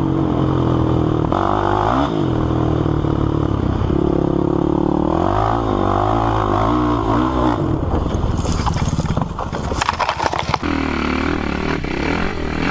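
Sport quad (ATV) engine running hard, its pitch rising and falling as the rider revs and shifts. From about eight seconds in, a run of clattering knocks and rattles from the quad bouncing over rough ground, with more knocks near the end.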